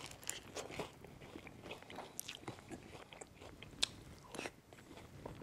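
A person biting and chewing bread soaked in seafood stew, heard close up: a run of soft crunches and wet mouth clicks, with one sharper click about four seconds in.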